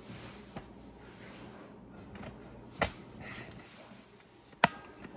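Sharp switch clicks from the front-panel circuit breaker of an EG4-LL 48 V server rack battery being worked: one about three seconds in and a louder one about four and a half seconds in, with faint handling noise between them.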